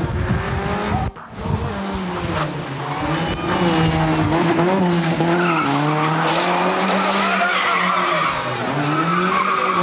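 Rally car engine revving hard, its pitch rising and falling repeatedly as the throttle is worked through a sliding corner, with the sound dropping away briefly about a second in.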